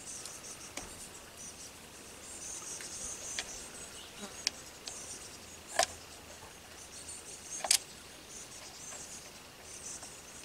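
Insects chirping and buzzing steadily at a high pitch in the background, with several sharp clicks from screws being driven into the drone's plastic landing gear. The loudest clicks come about halfway through and about three-quarters through.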